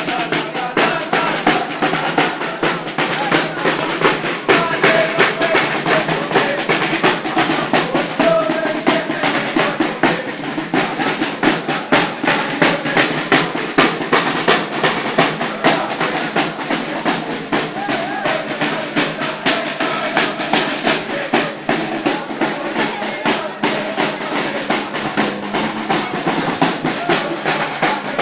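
Marching snare drums beaten in a fast, steady rhythm with rolls, with a crowd's voices chanting along.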